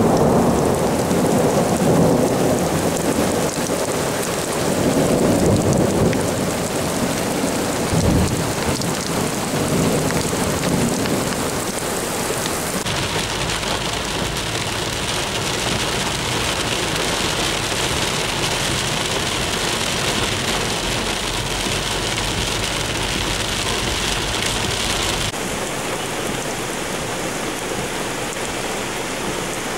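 Heavy rain pouring steadily, with rolling thunder rumbling through the first dozen seconds and a sharper clap about eight seconds in. The rain sound shifts abruptly twice, near the middle and again near the end, then goes on as an even hiss.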